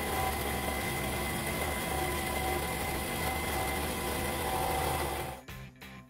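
Record Power variable-speed scroll saw running, its blade cutting through a stack of 6 mm plywood pieces. The saw noise cuts off suddenly about five seconds in.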